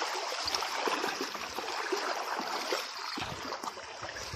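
Shallow water splashing and sloshing around a person's legs as he wades, with many small splashes throughout.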